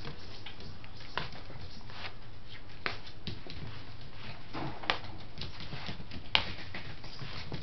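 Scottish terrier puppies scuffling and tugging at a rope toy on a vinyl floor: scattered clicks and scrapes of claws and paws, the sharpest click about six seconds in.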